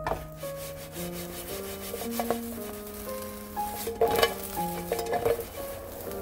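Eggplant slices being stirred and moved about in a dry nonstick frying pan, scraping and sliding against the pan with a light sizzle and a few louder clatters about four and five seconds in. Soft piano music plays underneath.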